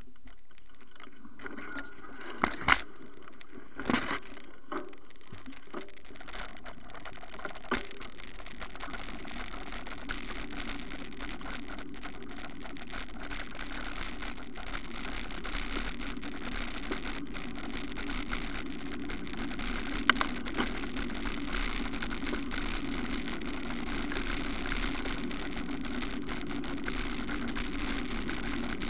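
Tyres rolling over a gravel and dirt track: a steady crunching hiss that grows a little louder, with a few sharp knocks in the first eight seconds and another about twenty seconds in.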